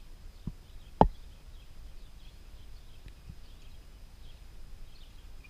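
Quiet outdoor ambience with faint bird chirps, broken by one sharp knock about a second in and a smaller click just before it.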